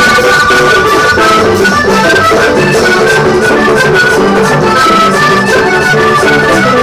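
Live Latin American band music: a plucked string instrument played close up, over sustained melody notes and a steady rhythm.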